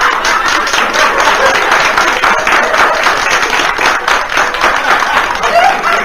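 Audience applauding steadily, with some laughter mixed in, in response to a joke's punchline.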